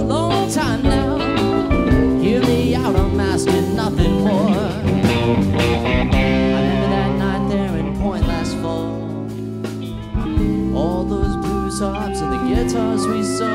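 Live band playing an instrumental passage: a lead electric guitar with bent notes over bass, drums and keyboard.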